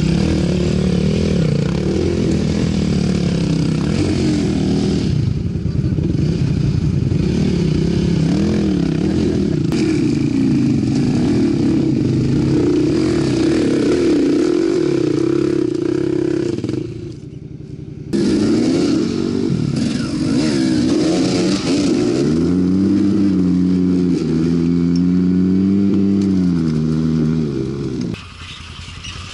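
Off-road dirt bike engines revving hard under load on a steep rocky climb, the pitch repeatedly rising and falling as the throttle is worked. There is a brief quieter gap about two-thirds of the way through.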